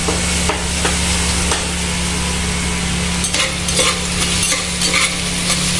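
Garlic sizzling in hot oil in a pan, with scattered light scrapes and taps of a utensil stirring it.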